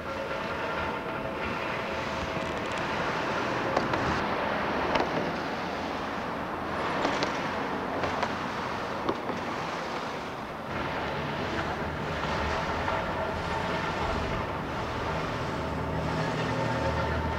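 Road traffic noise: a steady rush of passing cars and tyres on a wide street, with a few sharp clicks. A deeper engine hum builds near the end.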